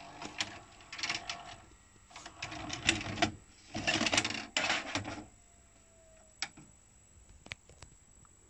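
VHS cassette being ejected from a Panasonic NV-HD630 VCR. The deck's loading mechanism clicks and whirs, and the plastic cassette scrapes out past the door flap, loudest around the middle. A faint falling whine follows, then a few single clicks as the tape is handled and set down.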